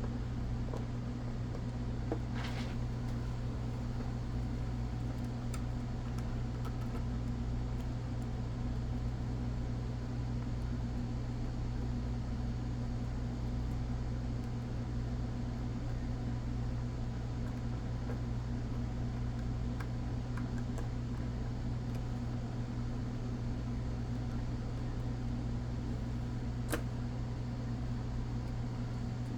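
Steady low mechanical hum, with a couple of faint sharp clicks, one a few seconds in and one near the end.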